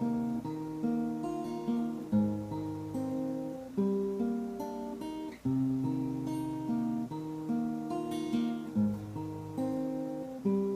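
Acoustic guitar playing an instrumental passage of a song, strummed chords ringing and changing about every one and a half to two seconds.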